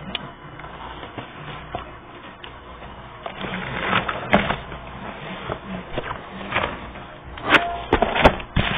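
Stiff paper and card pages of a pop-up book handled and rustling, with several sharp knocks and taps near the end as the book is moved and closed.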